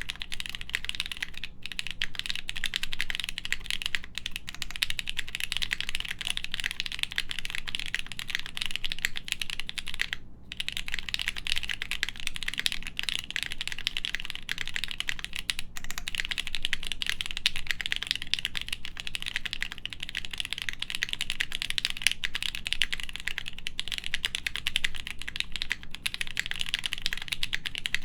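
Fast, continuous typing on a plateless Studio Kestra Nue mechanical keyboard with lubed H1 switches and GMK keycaps, with a brief pause about ten seconds in.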